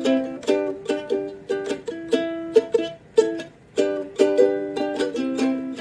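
Ukulele strummed in a steady rhythm, ringing chords with no singing.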